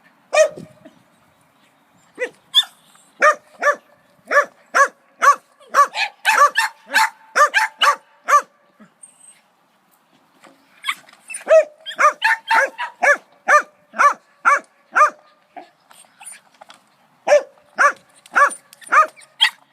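A dog barking in quick runs of short, high-pitched barks, two or three a second, with short pauses between the runs.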